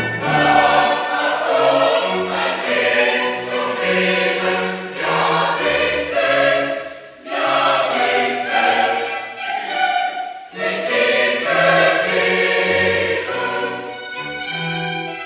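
A choir singing, phrase by phrase, with a short break about halfway through.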